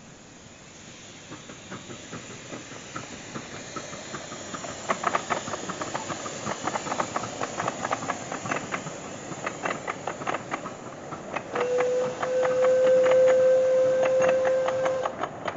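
Miniature steam locomotive and its wagons running past on a garden railway. Steam hisses, then from about five seconds in the wheels click quickly over the rail joints, louder as the train draws near. A little before the end a steady whistle sounds for about three seconds, the loudest thing heard.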